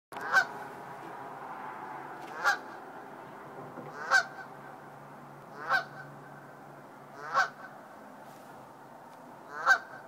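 Canada goose honking from a rooftop: six single honks, each short and loud, spaced about one and a half to two seconds apart.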